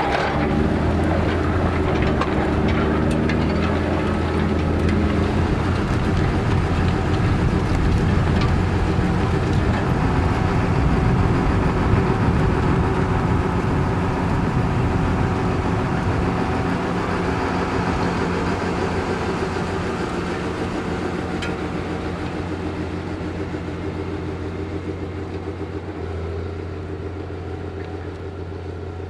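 Tractor engine running steadily under load while pulling a three-row zonal tillage rig through the soil. It fades gradually over the second half as the tractor moves away.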